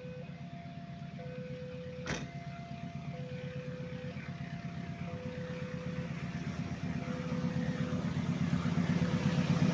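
Railway level-crossing warning alarm sounding a repeating two-tone signal, low then high, while the rumble of an approaching diesel train grows steadily louder. A single sharp click about two seconds in.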